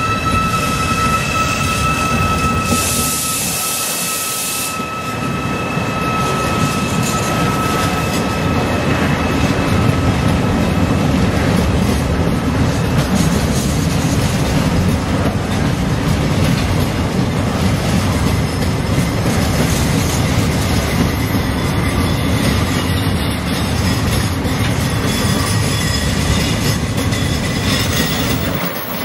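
A train rolling past on the rails with a steady heavy rumble of wheels. A thin steady squeal fades out about six seconds in, and a brief hiss sounds about three seconds in.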